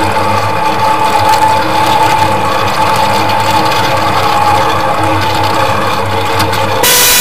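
Ride-on miniature railway train running along its track, heard from on board: a rapid clicking of wheels on the rails over a steady whine and a low hum. A brief loud rushing noise comes just before the end.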